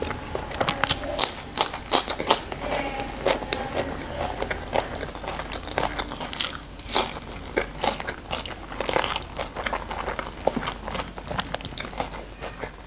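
Close-miked eating sounds: crisp crunching bites of raw cucumber and chewing, with a run of loud crunches in the first few seconds, then softer wet chewing and mouth clicks.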